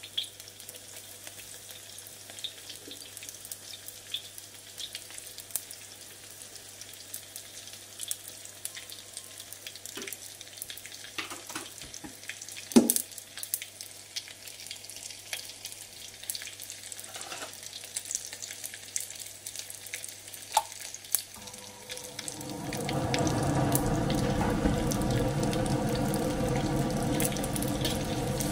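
Chopped garlic heating in oil in a steel wok: faint crackling and scattered pops at first, then about three-quarters of the way through a steady, much louder sizzle as the oil gets hot enough to fry it. It is stirred with a spatula near the end.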